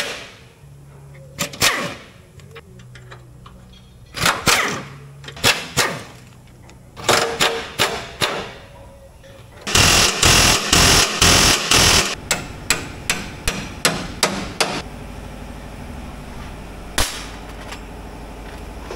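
Pneumatic impact wrench hammering in short rattling bursts on rusted crossmember bolts, with one longer, louder run of about two seconds midway and a few quick blips after it. A steady low hum fills the last few seconds.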